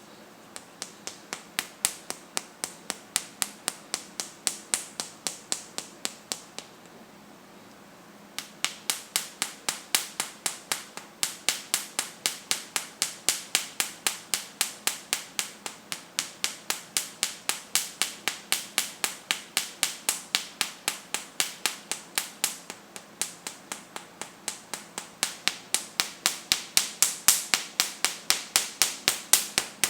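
Rhythmic slaps of an open palm patting the upper chest, about three a second, with a pause of about a second and a half about a quarter of the way in.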